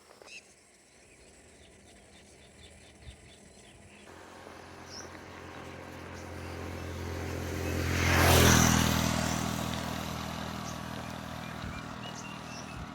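A motor vehicle's engine passing by: it grows louder for several seconds, is loudest a little past the middle, then fades away.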